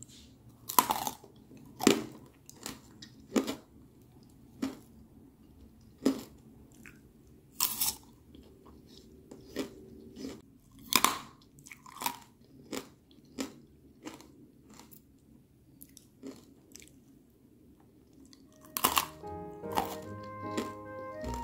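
Crunchy bites and chewing of candied apple, its hard glassy sugar shell cracking in sharp, irregular crunches about once a second. Piano music comes in near the end.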